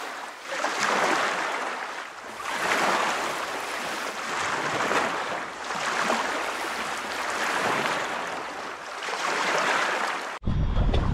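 Sea waves washing in, the sound swelling and falling about every two seconds. Near the end it cuts to wind buffeting the microphone.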